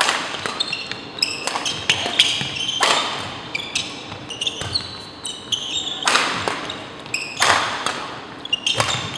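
Badminton rally: sharp racket strikes on the shuttlecock at irregular intervals, with sneakers squeaking on the hardwood court, the hits echoing in the hall.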